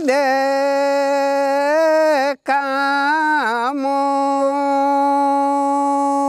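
A solo voice singing a slow, unaccompanied melody with ornamented pitch bends. It breaks off briefly about two and a half seconds in, then settles into one long held note.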